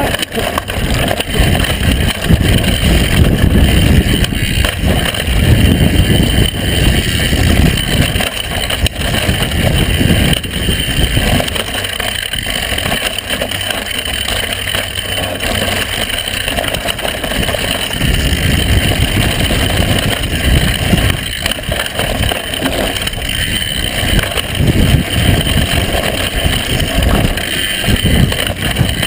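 Wind buffeting the microphone over the rumble and rattle of a mountain bike rolling fast down a bumpy dirt trail. It eases off for a few seconds in the middle.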